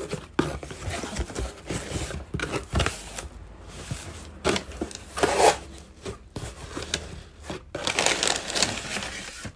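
A parcel's packaging being handled and opened by hand, heard as irregular bursts of rustling and crinkling.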